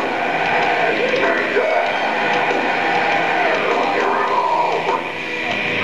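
Live nu-metal band playing loud, with the vocalist yelling and singing into the microphone over the band, picked up from within the crowd.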